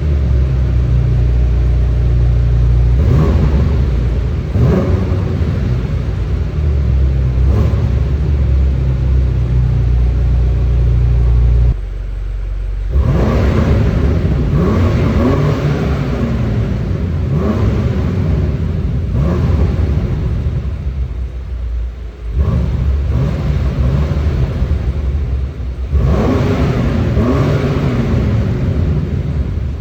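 BMW M5 Competition's twin-turbo V8 through its stock exhaust, running steadily at first. From about thirteen seconds in, the revs rise and fall repeatedly.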